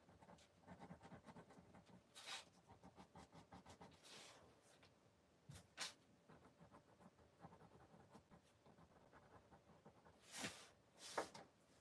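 Faint scratching and tapping of a paintbrush working paint onto paper in quick small strokes, with a few short soft hisses in between.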